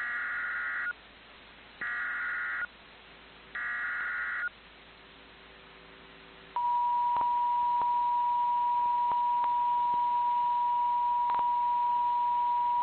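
NOAA Weather Radio Emergency Alert System opening: three bursts of SAME header data tones, each a warbling digital screech about a second long with short gaps between them. About six and a half seconds in, the weather radio's single-pitch warning alarm tone starts and holds steady, with a few faint clicks over it. This signals the start of an emergency alert, here a Civil Emergency Message.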